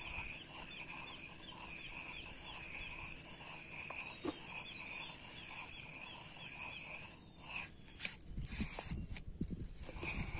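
Spinning reel cranked on a steady lure retrieve, giving a rhythmic whir that pulses about three times a second. The cranking stops about seven seconds in, followed by thumps and sharp clicks of rod and reel handling. The whir starts again near the end.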